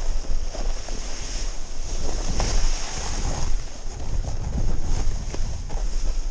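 Snowboard sliding and carving over snow, a steady hiss and scrape with occasional knocks as the board goes over bumps, under heavy wind rumble on the microphone.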